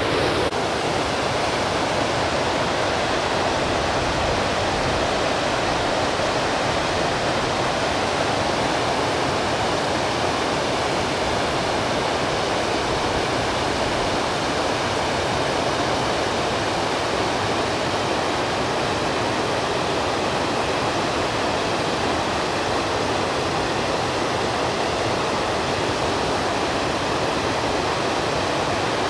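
Rushing mountain stream: a loud, steady, unbroken rush of water.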